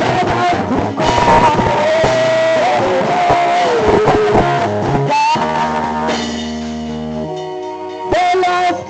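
Live praise-band music with electric guitar playing gliding melodic lines, and a chord held for a couple of seconds past the middle.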